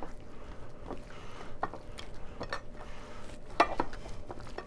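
Gloved hands rubbing miso marinade into cod fillets in a ceramic bowl: soft handling with scattered light clicks and knocks against the bowl, the loudest about three and a half seconds in.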